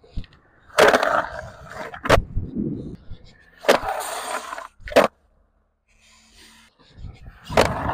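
Skateboard slappy grinds on a metal-edged concrete ledge, three times: each starts with a sharp crack as the trucks slap onto the edge, grinds along it for about a second, and ends with a clack as the board comes off. Wheels roll on concrete in between.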